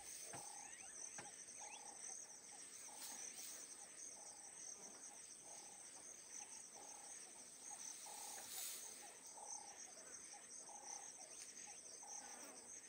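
Faint insect chorus: a steady high trill, with a short mid-pitched note repeating about every two-thirds of a second.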